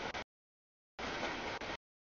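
Featureless background noise that cuts in and out abruptly: on for about a quarter second at the start, dead silent, then on again from about one second in until just before the end.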